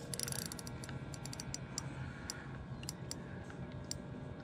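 Spinning reel clicking in irregular ticks while a hooked catfish is being played on a bent rod.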